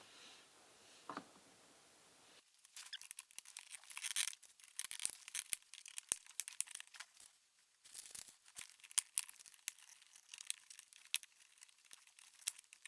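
Plastic interior trim creaking and crackling as it is pried up with a plastic trim removal tool, with irregular clicks and snaps from the clips. It starts about two seconds in and pauses briefly around the middle.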